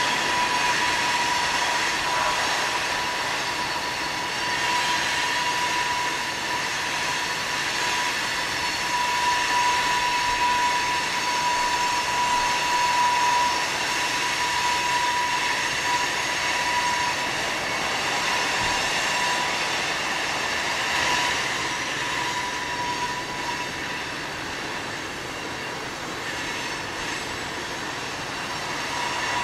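Loaded coal hopper cars rolling around a curve, their wheel flanges squealing against the rail over the running noise of the passing train. The squeal is loud and steady, a high tone with several higher ringing tones above it. It is the squeal of flanges on dry rails that want greasing.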